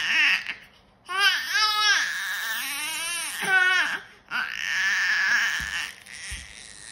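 A baby's high-pitched squeals and coos, a string of calls with short breaks between them, one held for over a second near the middle.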